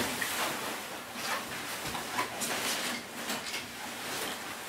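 Rustling and scuffing of a nylon pop-up play tunnel as a child crawls through it.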